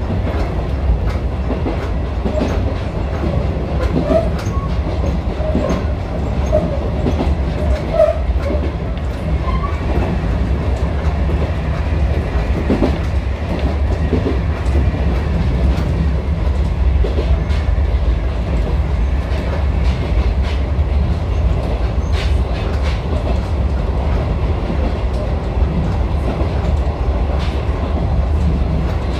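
Electric train running along the track, heard from inside the driver's cab: a steady low rumble of wheels on rail, with scattered clicks and knocks from the wheels and rail joints.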